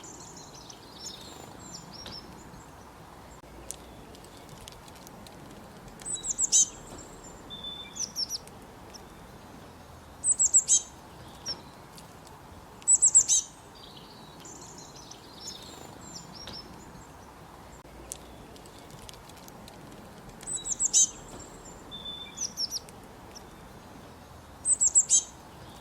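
Squirrel chirping: short bursts of rapid, very high-pitched chirps, repeated every few seconds with softer chirps between, and a longer pause midway.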